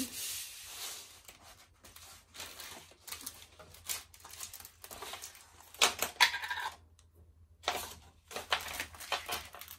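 Diamond-painting canvases and plastic-wrapped packets of drills being handled and laid down: uneven rustling and crinkling of plastic and canvas with light clicks, loudest about six seconds in.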